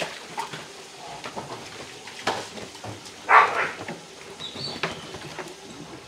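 A swan being handled to have its cut wing feathers pulled: scattered rustles and small knocks, with one short, louder rushing burst a little past three seconds in and a brief high chirp about a second later.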